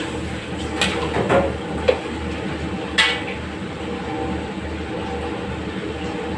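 Metal spatula scraping and clinking against a steel wok as chicken pieces are stirred, with a few sharp clinks in the first three seconds and then none, over a steady background rumble.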